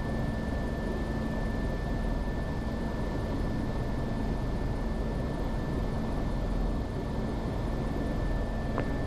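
Airbus EC135 helicopter's twin Pratt & Whitney 206B2 turboshaft engines running steadily, heard inside the cockpit, with a steady high-pitched whine over the even rumble. A single faint click near the end.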